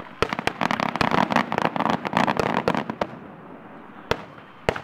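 Aerial fireworks shells bursting: a rapid barrage of sharp bangs and crackling for about three seconds, then two single bangs near the end.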